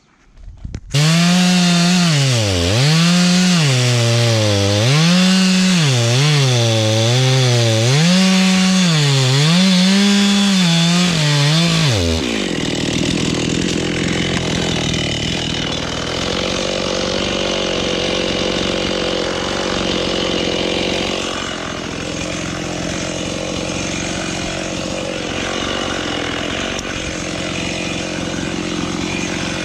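Chainsaw running, coming in suddenly about a second in; its pitch rises and falls over and over for about ten seconds, then settles into a lower, steadier note with a grainy rasp as it cuts through eucalyptus wood.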